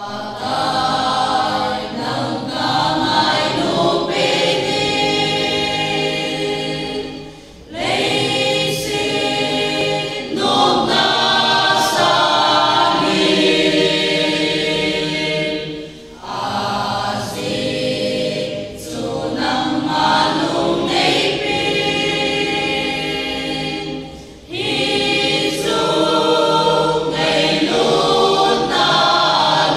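Mixed choir of young men and women singing a hymn unaccompanied in several parts. The singing breaks off briefly three times between phrases.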